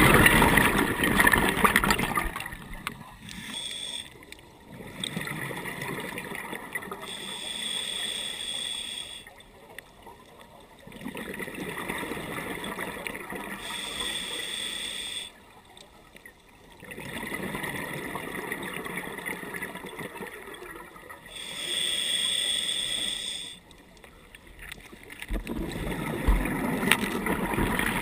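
Scuba regulator breathing: a steady hiss with a thin high whistle on each inhale, then a rush of exhaled bubbles, repeating about every six to seven seconds, about four breaths in all.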